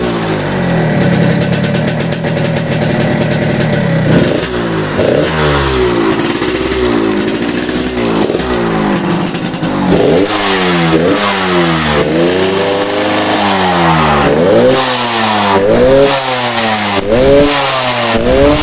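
Yamaha RX-King two-stroke single-cylinder motorcycle engine running through its hollowed-out (bobok) exhaust, tuned for a crisp, growling 'garing ngorok' note. It holds a steady fast idle for about four seconds, then is revved again and again, each rev rising and falling, the revs coming quicker in the second half.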